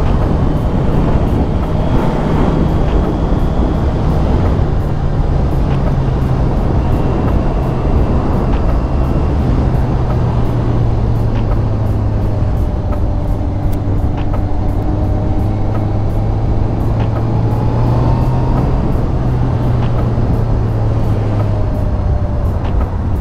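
Honda CBR650R's inline-four engine running at steady road revs, heard from the rider's position over a loud, steady rush of wind and road noise. The engine note drops a little about two seconds in and then holds lower as the bike eases off.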